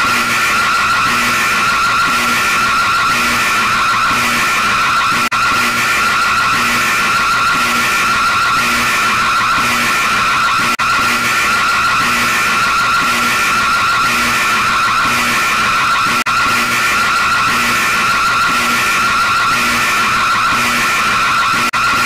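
Loud, harsh, continuous emergency-alert-style alarm tone, a steady high screech that throbs about twice a second.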